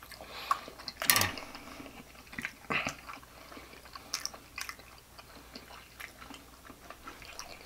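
Close-miked chewing of a mouthful of Spam: wet smacking mouth sounds and small clicks, the loudest smack about a second in.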